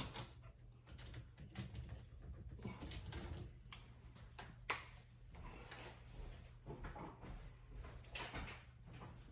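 Dishwasher top rack being slid out along its rails and lifted out: scattered light clicks and rattles, with two sharper clicks near the middle.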